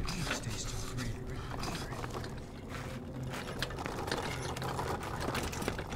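Ambulance stretcher (gurney) rattling and clicking as it is pulled out and wheeled, with scattered metallic knocks over a low steady hum.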